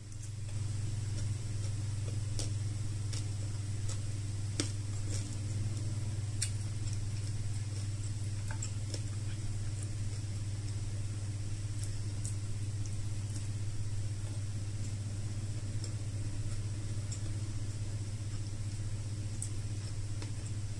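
Scattered small clicks and smacks of someone chewing food eaten by hand, over a steady low hum.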